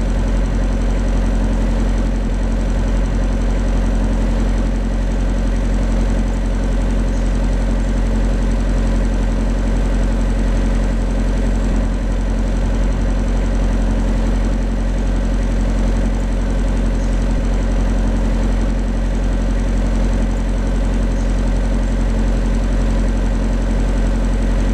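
A motor cruiser's engine running steadily as the boat moves slowly along the river, with an even hum that holds the same pitch throughout.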